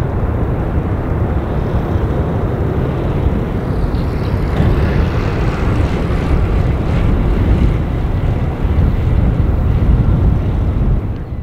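Airbus A380-841's four Rolls-Royce Trent 900 engines at climb power, a steady deep roar heard from behind as the airliner climbs away after takeoff. The sound cuts off abruptly at the end.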